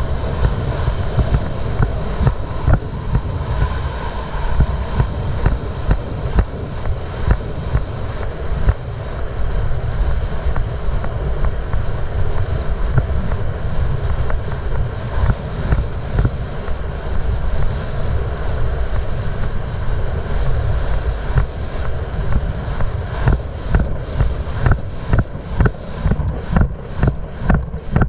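Wind rushing over the microphone of a galloping racehorse's rider, with the regular thud of the horse's hooves on the dirt track at about two strides a second. The hoofbeats grow clearer near the end.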